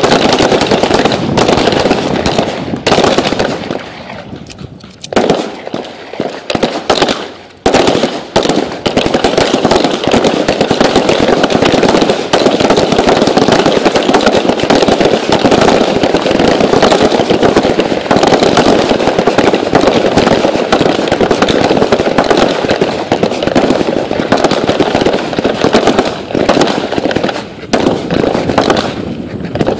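Many pistols firing at once along a firing line, shots overlapping in a rapid, irregular crackle. The firing thins out briefly a few seconds in, then picks up again.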